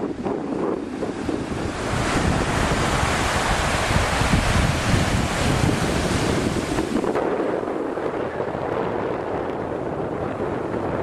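Ocean surf: a wave breaks and washes in, swelling from about two seconds in and easing off about seven seconds in, with wind noise on the microphone.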